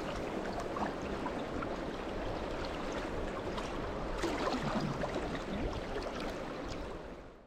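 River water rushing and splashing, a steady noise with scattered small splashes, fading out near the end.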